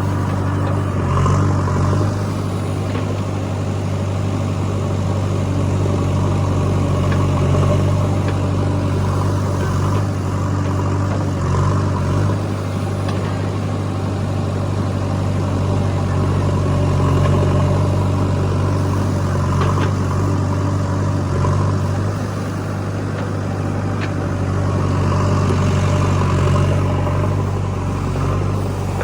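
Diesel engine of a JCB 3DX backhoe loader running steadily as it works, its revs swelling briefly a few times.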